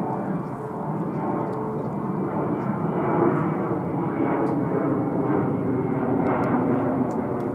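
Jet noise from a Boeing 737-800's twin CFM56-7B turbofan engines as the airliner climbs out after takeoff: a steady, rough rushing sound, mostly low and mid in pitch, holding an even level.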